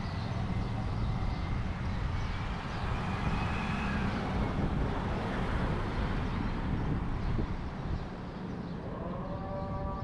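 Street traffic rumble with wind on the microphone. About nine seconds in, a long, steady horn-like tone starts and holds.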